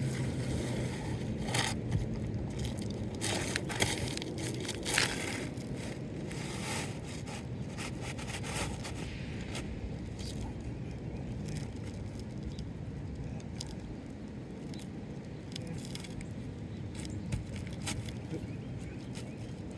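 Scraping, crackling and sharp clicks of asphalt roof shingles being pried and worked loose with hand tools. The clicks and scrapes come thick in the first half and thin out later, over a steady low background noise.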